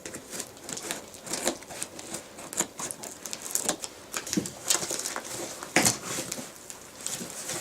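A package being unpacked by hand: irregular rustling, scraping and small clicks of packaging and box being handled, with one sharper knock about three quarters of the way through.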